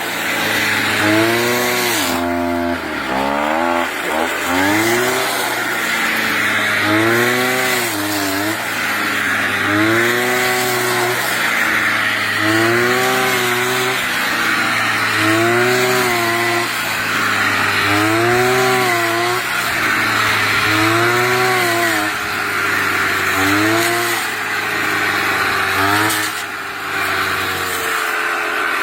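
Brush cutter engine revving up and dropping back over and over, about every two seconds, as it cuts rice stalks.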